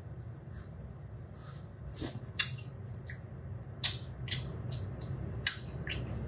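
Soft scattered clicks and smacks of someone eating stew from a small bowl with a spoon, a few louder ones about halfway and near the end, over a low steady hum.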